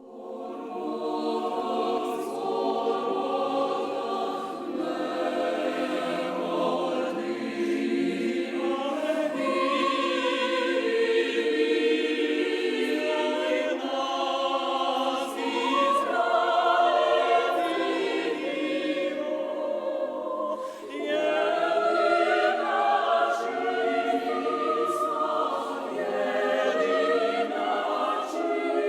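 Choir singing, many voices holding and moving between sustained notes, with a brief break a little over twenty seconds in.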